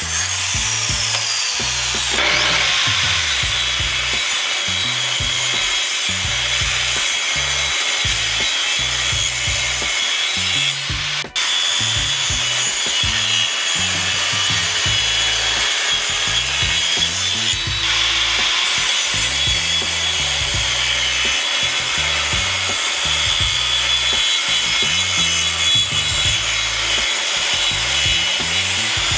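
Electric power saws cutting wood: a sliding compound miter saw cutting a board, then a table saw blade cutting boards. The saw noise is steady and loud, with a few abrupt breaks where one cut gives way to the next.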